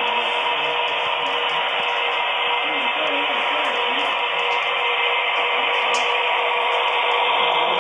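HO scale model train running on its track: a steady whirring rush with a constant hum through it.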